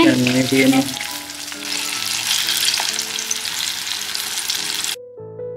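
Breaded chicken drumsticks deep-frying in hot oil in a wok: a steady sizzle, under soft background music. The frying cuts off suddenly about five seconds in, leaving only piano music.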